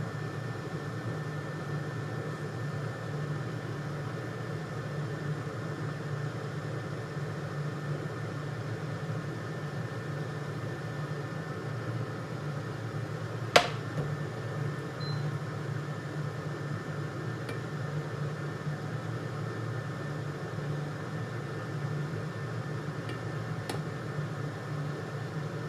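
Steady low hum of a fan or running appliance, with a faint high steady whine over it. One sharp click or clink about halfway through.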